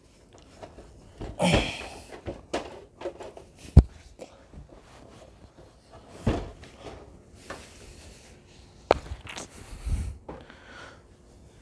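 Irregular handling noises as a desktop PC case is lifted and unpacked: scraping and rustling, soft thuds, and a few sharp clicks or knocks, the sharpest about four seconds in and again near nine seconds.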